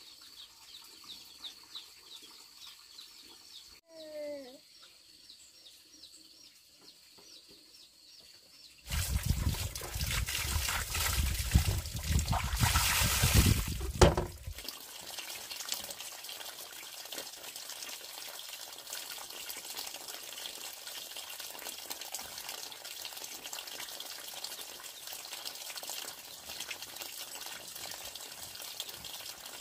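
Water splashing loudly for about five seconds, then a steady trickle of running water.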